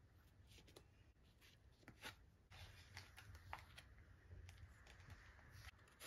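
Faint scraping and light tapping of a metal palette knife spreading thick paint across a journal page, a few soft ticks among a quiet scrape that grows slightly louder about halfway through.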